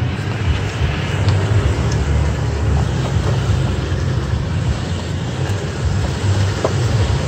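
Toyota Tacoma pickup driving slowly over a rocky dirt trail: a steady low rumble of engine and tyres on gravel, with a few faint ticks of stones, heard from a camera mounted outside the body beside the front wheel.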